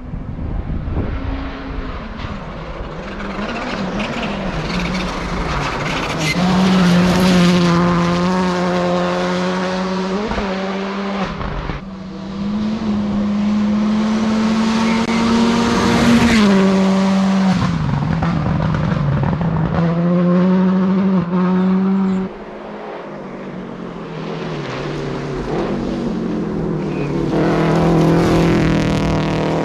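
Stage rally cars at speed on a gravel forest road, engines held at high revs with several gear changes and lifts as they pass. The sound drops off abruptly about two-thirds of the way through, then builds again near the end.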